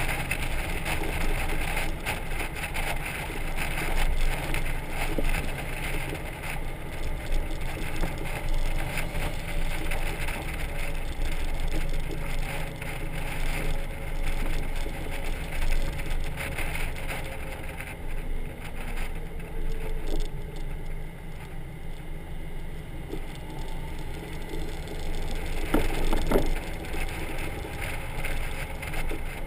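Wind rushing over the microphone and a steady low road rumble of a motorcycle trailer at city road speed, with the Honda Gold Wing's engine hum faint underneath. One louder knock near the end.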